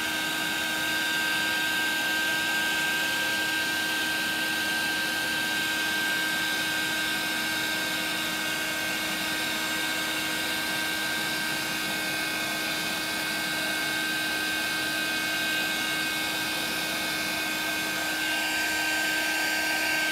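Handheld embossing heat tool running steadily, melting clear embossing powder from under the card. Its fan makes a constant whir with a steady high whine over a lower hum, a little louder near the end.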